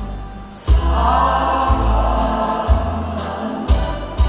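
Song played through stage speakers: a backing track with a steady bass beat about once a second and choir-like vocals.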